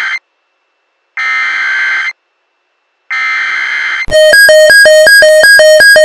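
EAS SAME header data tones from a weather radio receiver: harsh buzzy bursts about a second long, with a second of silence between them. The tail of one burst is followed by two more, the last ending about four seconds in. Then the receiver's loud alert alarm starts, a rapid repeating electronic beep of alternating tones.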